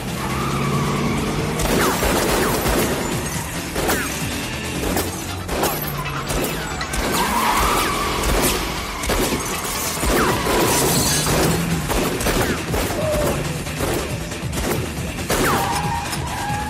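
Action-film soundtrack: a music score mixed with a police car's tyres squealing as it skids, along with repeated impacts and breaking glass.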